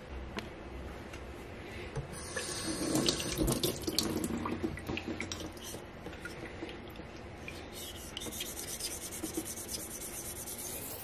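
Tap water running into a stainless steel sink, then a straight razor scraping back and forth on a wet, coarse 220-grit King whetstone in quick strokes, grinding a new bevel to remove a chip from the edge.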